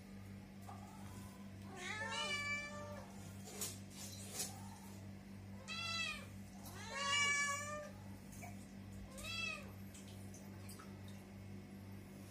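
Cats meowing: four drawn-out meows, the loudest about seven seconds in. A steady low hum runs underneath.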